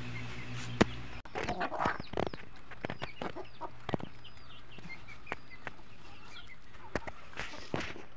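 A flock of hens and young chicks clucking and peeping while pecking at feed on bare ground, with short high peeps a few seconds in and scattered sharp clicks throughout.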